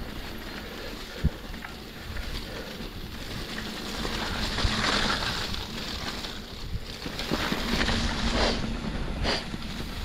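Mountain bike riding through mud: tyres rolling and splashing on a sodden trail, with wind buffeting the microphone, and a sharp knock about a second in. The noise swells about halfway through.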